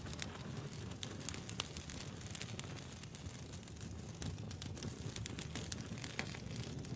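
Wood fire burning steadily, with a soft low rumble under frequent irregular sharp crackles and pops.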